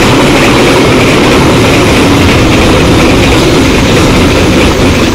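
Container freight train's flat wagons rolling past at close range: a loud, steady rush of steel wheels on the rails.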